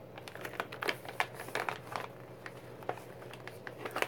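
Packaging being handled: a resealable bag and its wrapping rustle and crinkle in a string of small, irregular clicks and crackles, over a faint steady hum.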